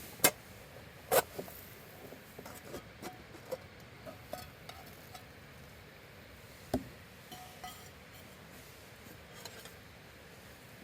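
Cooking utensils clinking and tapping against dishes and a hot iron griddle, with a few sharper knocks, two near the start and one about two-thirds through.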